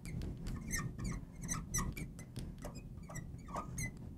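Fluorescent marker squeaking on a glass lightboard as a word is written: a quick, irregular run of short, high squeaks.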